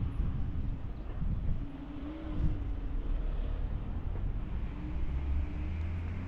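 Wind buffeting the microphone in an uneven low rumble, with a faint engine hum beneath it that wavers in pitch a couple of times.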